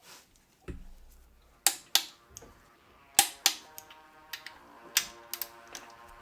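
Click-type torque wrench clicking as the main bearing cap bolts reach 85 ft-lb: sharp clicks, about three pairs. Music fades in about halfway through.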